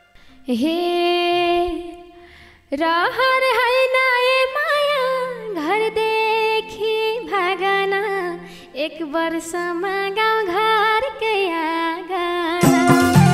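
A woman sings a solo vocal line of a Nepali dohori song, with no band behind her, in long phrases with ornamented pitch bends and a brief pause about two seconds in. A soft low held note runs under the voice from about five seconds in. Near the end the band comes back in with drums.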